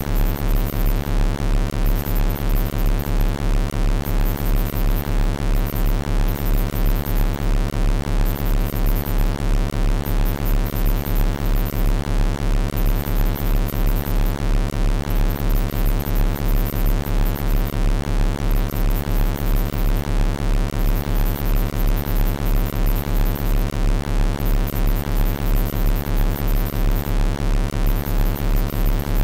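Electronically generated 34 Hz tone: a steady, very deep hum with a stack of overtones above it, pulsing evenly in loudness.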